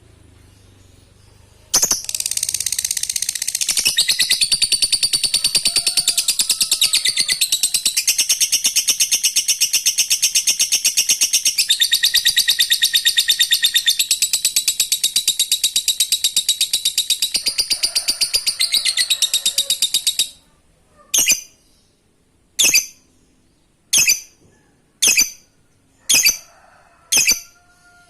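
Lovebird giving a long 'ngekek': a rapid, high-pitched chattering trill held without a break for about 18 seconds, then cut off and followed by a string of single sharp chirps about once a second.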